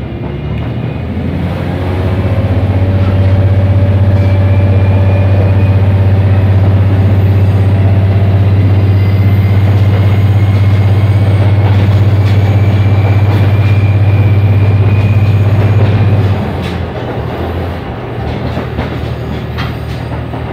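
Diesel engine of a KiHa 11 series railcar heard from inside the carriage: a loud, steady drone that climbs in pitch over the first couple of seconds, then drops away abruptly about sixteen seconds in, leaving the quieter rumble of the wheels on the rails.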